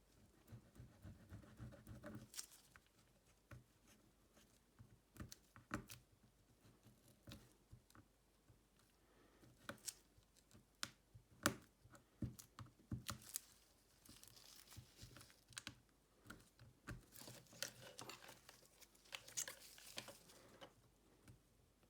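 Faint hand work on a smartphone during a back-cover repair: scattered small clicks and taps, with stretches of soft tearing and scraping like adhesive or film being peeled and worked.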